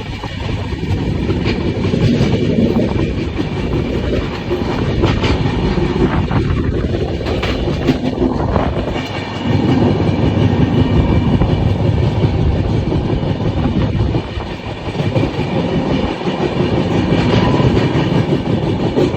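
A train running on the rails, with a continuous heavy rumble and a few sharp clacks from the wheels.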